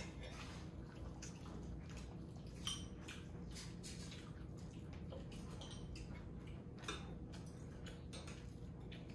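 Scattered light clinks and taps of spoons and bowls during a meal, over a low steady room hum.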